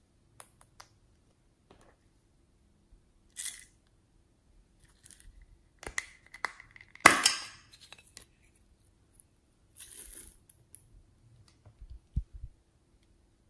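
Small plastic containers of glitter and beads handled over a tray of slime. Scattered clicks and short rustles as glitter is sprinkled out, with one louder rustle about seven seconds in.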